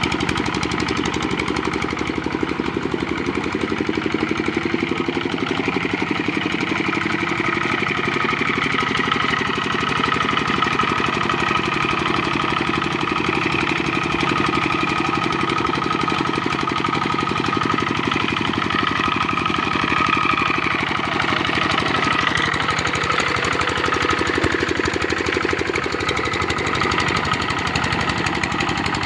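Kubota RD65 single-cylinder diesel engine on a hand tractor running steadily with a rapid, even knock, under a whining tone that wavers slightly in pitch.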